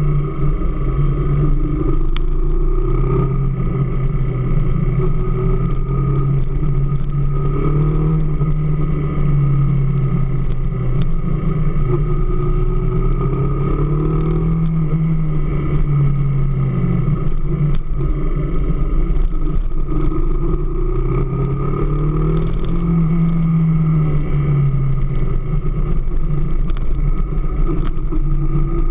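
AKT DS 200 motorcycle engine running steadily, its pitch gently rising and falling every few seconds.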